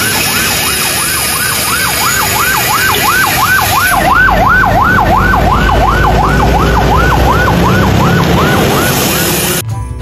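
Ambulance siren in a fast yelp, sweeping up and down about three times a second over a steady hiss. It grows louder toward the middle, fades again, and cuts off suddenly near the end.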